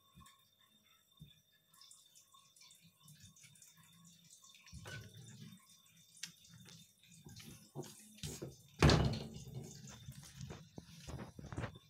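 A cat moving and pouncing on a wooden floor: scattered light taps and clicks of paws and claws, with a louder thump and scuffle about nine seconds in.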